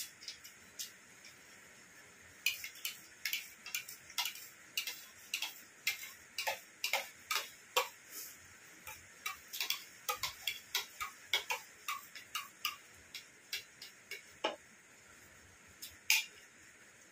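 Metal spoons clicking and scraping against plates while eating dahi vada: a run of quick, irregular clicks, thickest from a couple of seconds in until most of the way through, then sparser with one sharper click near the end.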